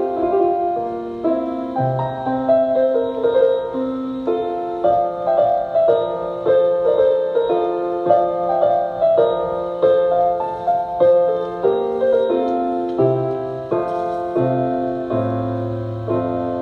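Piano playing a melody over chords and a bass line, closing on a held chord near the end.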